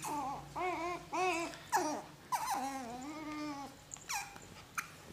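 Husky puppy giving a series of whining calls during rough play, each bending up and down in pitch, with one longer held call in the middle and a short falling call about four seconds in.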